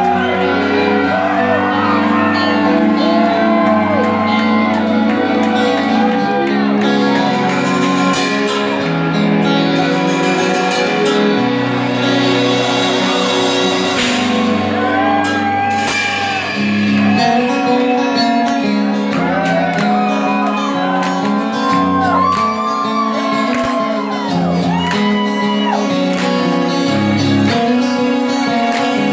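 Live rock band playing with electric guitars and singing, heard from the audience in a large hall.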